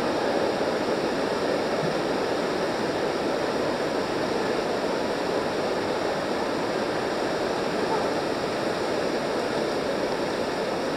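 Steady rushing of water pouring out of a tube water slide's outlet into its splash-down pool, with the churning pool water.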